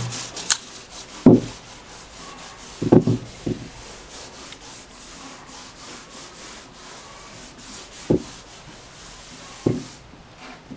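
A whiteboard eraser rubbing back and forth across a whiteboard as writing is wiped off, a soft scraping in quick strokes. A few short thuds stand out above it, twice close together a third of the way in and twice more near the end.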